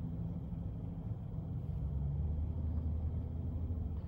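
Car engine idling, a steady low hum heard inside the cabin.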